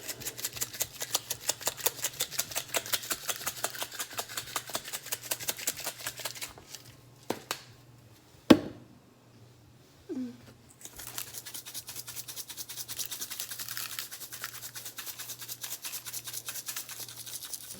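Spice shaker shaken rapidly over ribs, the seasoning rattling in quick even strokes. About halfway through the shaking stops, with a sharp knock, then starts again.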